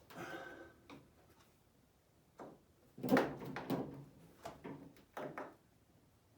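Metal handling sounds of a screwdriver working on a truck door's vent-window trim and screws: a short scrape with a squeak at the start, scattered clicks, and a cluster of knocks and rattles about three seconds in.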